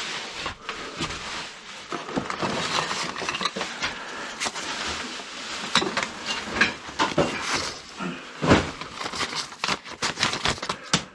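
Rummaging through a box of old records: paper sleeves rustling and crinkling, with irregular clicks and knocks as records and debris are handled, the loudest knock about eight and a half seconds in.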